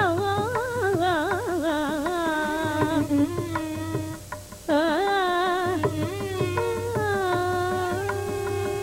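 Carnatic vocal singing: a woman's voice in phrases full of sliding, oscillating gamaka ornaments, a short breath about four seconds in, then a long held note near the end, with soft mridangam strokes underneath.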